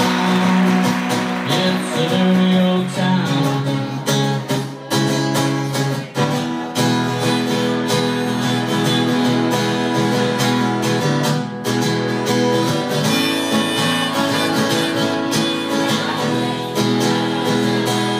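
Acoustic guitar strummed, playing chords of a song, with a man's singing voice over it at times.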